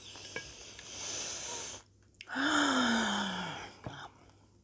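A woman's long, breathy breath, then a voiced sigh that falls in pitch, a sigh of fullness while eating nachos.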